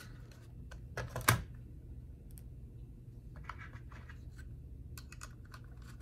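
Small metallic clicks and taps of a screwdriver and screws on a metal drive bracket as it is screwed onto an SSD, with a sharp knock about a second in and scattered lighter clicks later.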